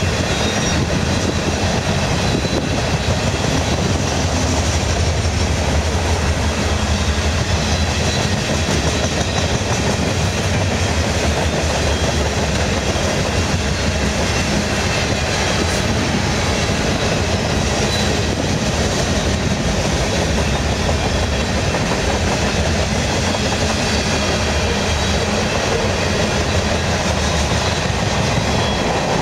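Freight train cars, covered hoppers and then open-top hoppers, rolling past. Their steel wheels on the rails make a steady rumble.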